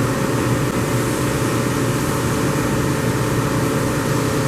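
Giddings & Lewis CNC vertical boring mill running under power: a steady machine hum with a low drone and several steady tones above it.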